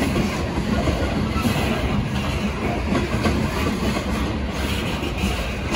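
Freight train tank cars rolling past, a steady rumble of steel wheels on the rails.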